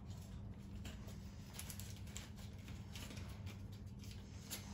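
Faint rustling and light crackling of baking paper, with small ticks, as a rolled puff pastry log is pressed and its edges sealed on it, over a low steady hum.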